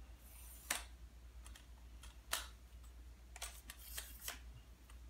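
Light clicks and rattles from a lightweight aluminium tripod's telescoping legs and leg locks being handled and extended: a few sharp separate clicks, with a quick cluster of them around three and a half to four seconds in.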